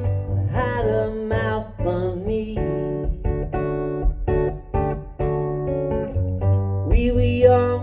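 Acoustic guitar strummed in a steady rhythm, with a man's voice singing briefly near the start and again near the end.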